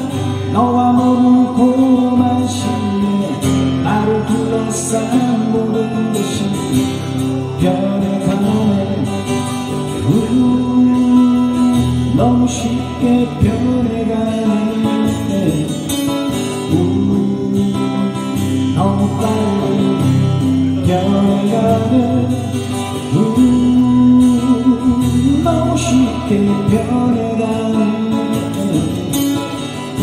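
Two acoustic guitars strumming together while a man sings a slow song, played live.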